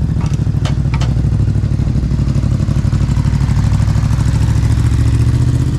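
Motorcycle engine idling steadily, with a few sharp clicks in the first second.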